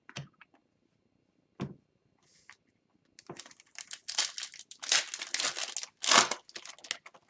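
A hockey card pack's wrapper crinkling and tearing as it is handled. A few light taps come first, then a run of crinkling starts about three seconds in and is loudest near the end.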